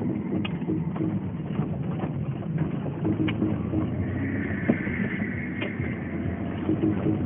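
Alfa Romeo 145's 1.6 boxer engine and tyre-on-road noise heard from inside the cabin while driving, steady, with a few short knocks, the loudest about four and a half seconds in.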